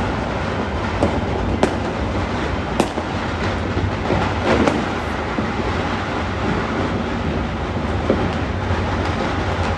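A steady din of many distant firecrackers and fireworks going off all across a city, with a few sharper, nearer pops standing out from it.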